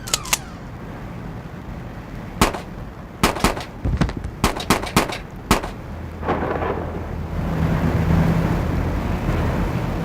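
A string of sharp bangs at uneven spacing, about ten of them, closely bunched between about three and five and a half seconds in. Then a steady low hum starts about six seconds in and swells a little around eight seconds.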